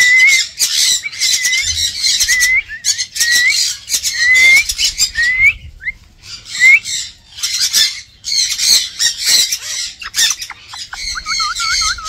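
Galah (rose-breasted cockatoo) giving a run of harsh screeching squawks, about two a second, each ending in a short rising note. There are two brief pauses midway and a quavering call near the end.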